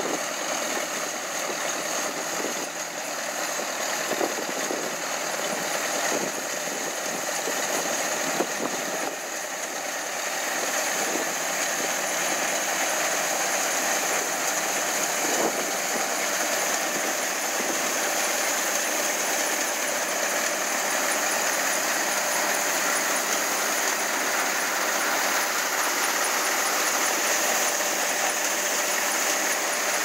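1937 Sunshine Auto-Harvester running steadily while harvesting wheat: its engine and the rattle of its cutting and threshing machinery.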